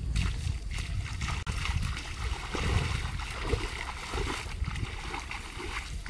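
Bare feet splashing through shallow water, in quick irregular splashes over a low rumble.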